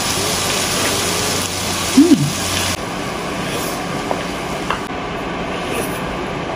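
Steady sizzling from a hot cast-iron sizzling plate of stir-fried squid in sauce, with eating sounds: a short hummed "mm" about two seconds in and a few light clicks of a wooden spoon.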